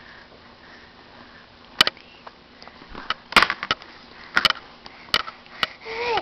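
Sharp, irregular taps and knocks on a baby's plastic high chair tray: about half a dozen separate hits, with a quick cluster of them about halfway through.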